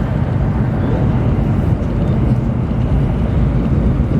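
Chinese high-speed train running at speed, heard inside the passenger car: a steady, even low rumble and rush of running noise.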